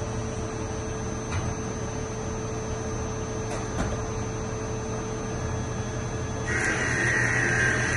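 Lathe running with a steady motor hum. About two-thirds of the way through, a higher-pitched whine joins and the sound gets louder.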